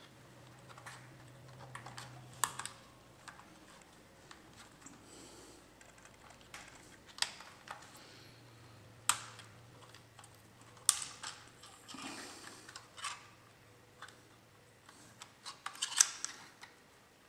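Irregular small clicks and taps of thin wires and small plastic and metal parts being handled in an open laptop's underside compartment, with a few sharper clicks.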